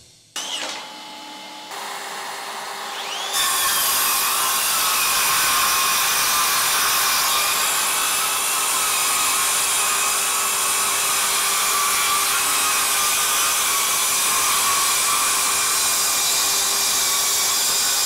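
Makita XSH04 18V sub-compact brushless circular saw with a 6-1/2-inch 24-tooth Diablo framing blade, spinning up about three seconds in and then cutting steadily through a stack of boards, its whine holding even under load.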